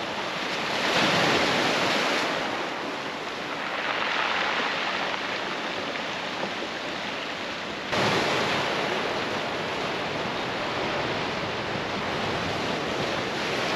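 Ocean waves washing in over a rocky, pebbly shore, swelling and easing in slow surges. The sound jumps abruptly louder about eight seconds in.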